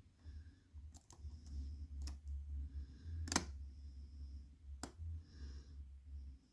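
Lock picks being worked in a challenge lock during picking: a handful of small sharp clicks, spaced irregularly, the loudest about three and a half seconds in, over a low handling rumble.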